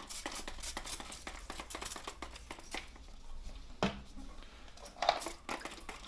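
Rustling and crinkling of plastic frame-protection film being handled and pressed onto a bicycle frame, with a steady run of small clicks and two louder knocks about four and five seconds in.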